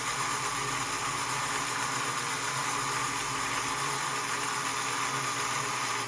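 Lionel #182 magnetic crane's electric motor running steadily as it lowers the magnet on its cable: a steady mechanical hum with a whine, cutting off at the end when the magnet reaches the rail.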